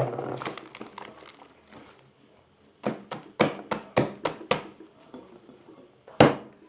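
Homemade slime being pressed and pulled by hand, giving a quick run of about six sharp sticky pops a few seconds in, then one louder pop near the end.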